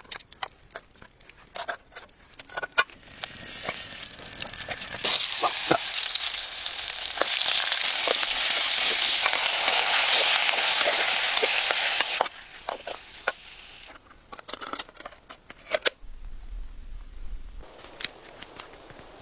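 Food frying in hot oil: a loud, steady sizzle that starts about three seconds in and cuts off suddenly about two-thirds of the way through, with scattered clicks and crackles before and after it.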